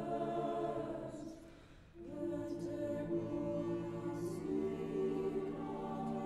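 Mixed-voice SATB chamber choir singing a cappella in sustained chords. A phrase dies away about a second in, and a new chord enters around two seconds in and is held.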